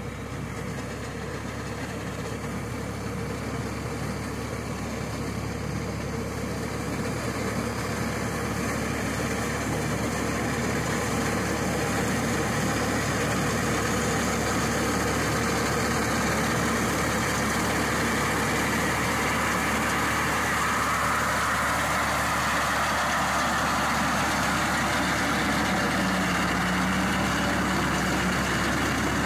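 Massey Ferguson MF 260 tractor's turbocharged diesel engine running steadily while it drives a reaper cutting wheat. The sound grows louder over the first half as the tractor comes closer, then holds steady.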